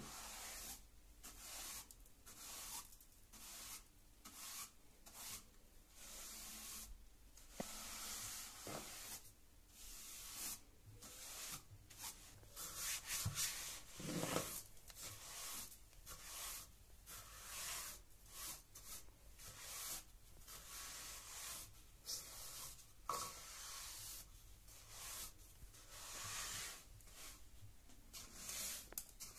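Wide natural-bristle paint brush sweeping dust and grit across a wooden stair tread: soft, scratchy brushing strokes, about one a second. There is a louder bump about halfway through.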